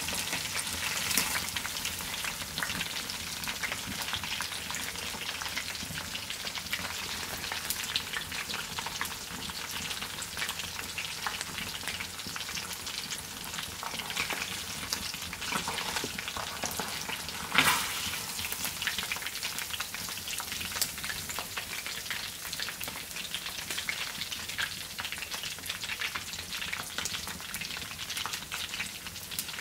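Hot lard sizzling and crackling on freshly fried confit chicken legs: a steady hiss with many small pops and one sharper pop a little past halfway.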